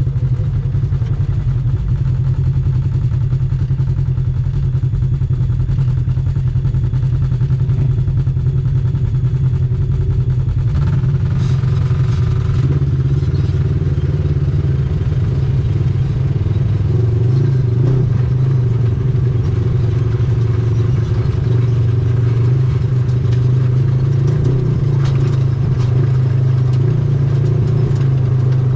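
ATV engine running steadily under way, with some rattling from the machine.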